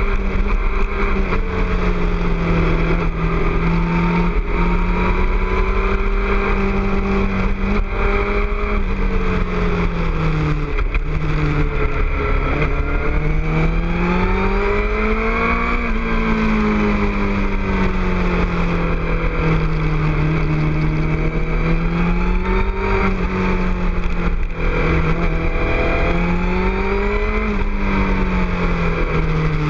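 2006 Suzuki GSX-R600 inline-four sportbike with a Two Brothers aftermarket exhaust, running on the road, its engine note rising and falling as the throttle is rolled on and off, with a climb about halfway through and another near the end. Wind rushes over the microphone underneath.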